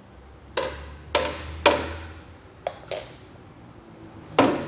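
A hard object dropped or knocked repeatedly onto the basin of a nano-coated kitchen sink, giving sharp knocks that ring briefly. There are three strong strikes about half a second apart, two lighter ones, and another strong one near the end. The coating does not make the basin any quieter.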